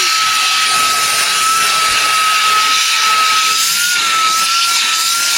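Klarpul cordless vacuum cleaner running with a steady high-pitched whine over a rushing hiss, the whine wavering slightly near the end.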